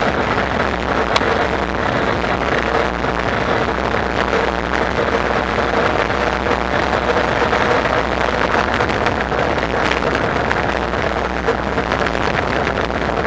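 Steady riding noise from an e-bike with a Bafang BBSHD mid-drive motor under way: an even rush with a faint steady hum running through it, and a single click about a second in.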